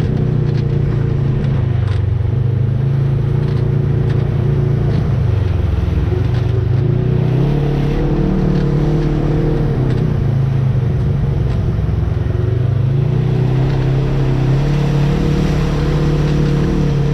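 Off-road vehicle's engine running under load, its engine speed dropping and climbing again twice.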